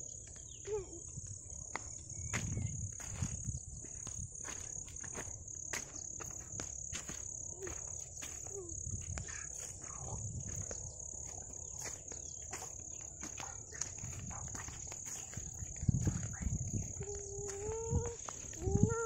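A steady, high-pitched chorus of crickets, with footsteps rustling through grass. Near the end a voice starts humming a tune.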